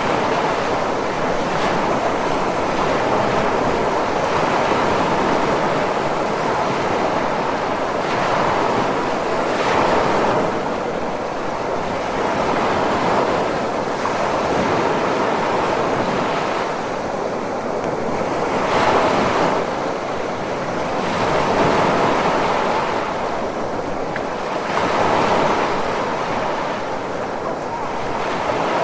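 Ocean surf: a continuous wash of breaking waves that swells and eases every two to three seconds.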